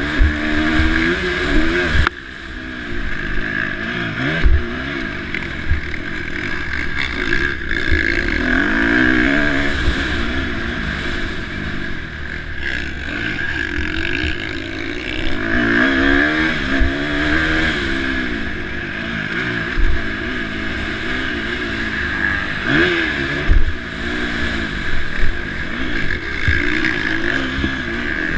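KTM SX-F 350 motocross bike's single-cylinder four-stroke engine under race load, its note rising and falling over and over as the throttle is opened and shut. Sharp knocks break through now and then, the loudest about 4.5 and 23.5 seconds in.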